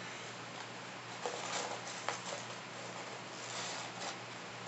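A few faint clicks and short soft rustles of a paper fries carton being handled, over a steady low hum.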